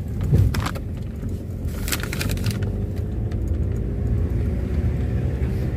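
Car driving slowly over an unpaved dirt road, with a steady low engine and road rumble. A few short rattles and knocks come from bumps in the first couple of seconds.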